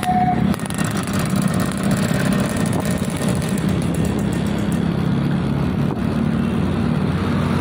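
Motorcycle engines running steadily as the bikes ride along a road, a continuous low engine drone.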